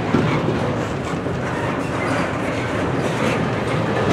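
Loaded container cars of a long freight train rolling past at slow speed: a steady rumble and rattle of steel wheels on the rails, with occasional clacks.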